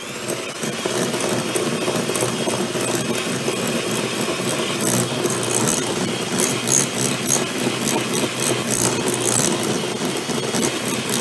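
Electric hand mixer switched on and running steadily, its beaters creaming softened butter and caster sugar in a glass bowl. From about halfway through, the beaters clatter irregularly against the glass.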